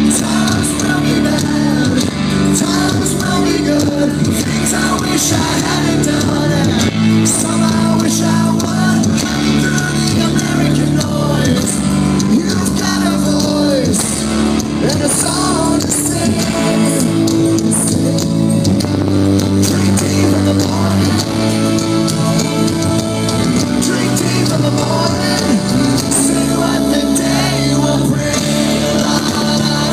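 Live rock band playing loudly with a singer, drums and guitars, heard from the audience.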